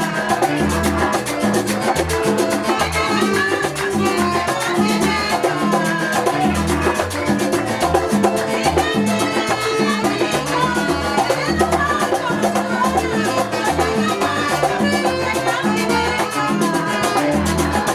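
Latin American music with a steady beat of percussion and a repeating bass line.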